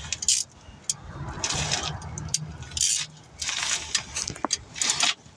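Metal hand tools and hardware clinking and rattling in a series of short bursts as bolts are fitted on a newly installed AC compressor.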